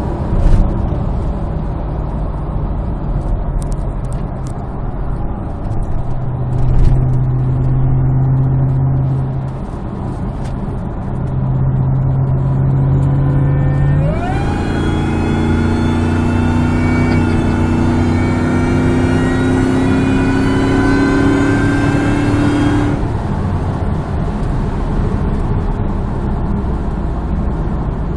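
Cabin sound of a Ford Lightning pickup at high speed, with steady engine and road noise. About halfway through, a whine with several pitches jumps in and keeps climbing slowly as the truck accelerates hard, then cuts off suddenly some nine seconds later when the throttle comes off.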